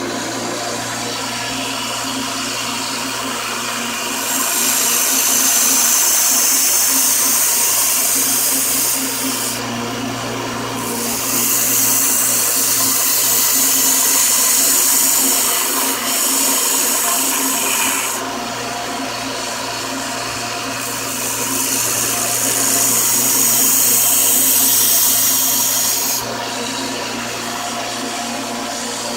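A power tool runs steadily, and a steel knife blade is pressed against it for three long stretches of loud, hissing grinding, taking the serrated edge down.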